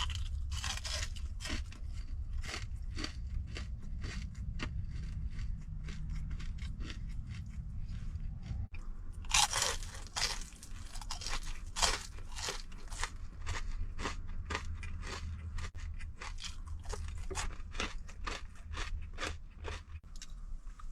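Close-up chewing of crunchy food, an irregular string of crunches that comes thicker in the second half, over a steady low rumble.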